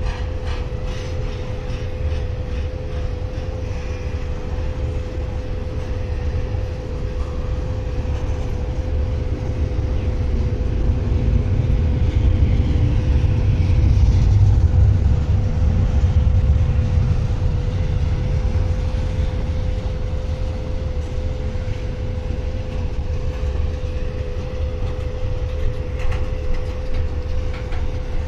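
Intermodal freight train rolling past on a mountain grade: a steady low rumble of wheels on rail that swells about halfway through and eases off again. A steady high whine runs under it, with a few clicks near the start.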